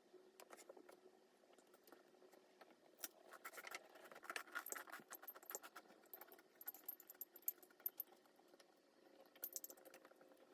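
Faint clicks, taps and rustling of small objects being handled in a small room.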